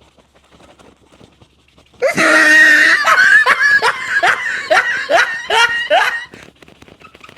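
Loud laughter: a sudden burst about two seconds in, then a run of about eight quick 'ha' pulses, each falling in pitch, that stops about a second before the end.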